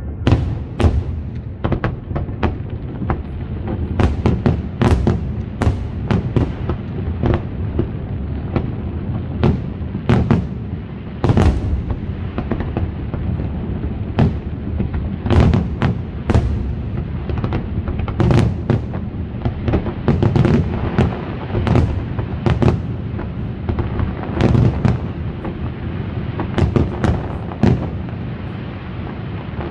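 Fireworks display: aerial shells bursting in rapid, irregular succession, sharp bangs over a continuous low rumble.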